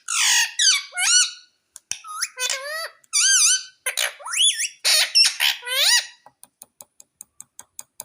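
Indian ringneck parrot calling: a run of loud squawks and warbling, whistle-like notes that sweep up and down in pitch, stopping after about six seconds. A string of faint quick clicks follows, about five a second.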